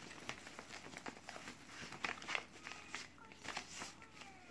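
A sheet of A4 paper rustling and crinkling in scattered short strokes as it is folded by hand and its creases are pressed flat against a tabletop.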